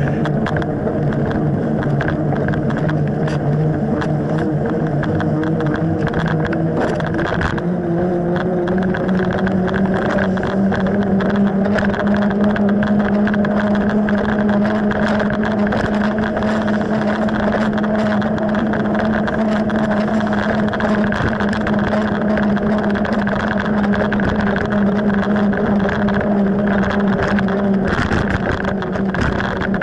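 Mountain bike rolling fast on wet asphalt: a steady hum from the tyres that steps up in pitch about seven or eight seconds in as the bike speeds up. Throughout there is a rushing noise and frequent small rattles and clicks from the bike.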